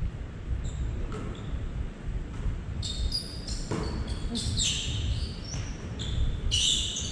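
Basketball sneakers squeaking on a hardwood gym floor, with a basketball bouncing during play. The squeaks come thick and fast from about halfway through.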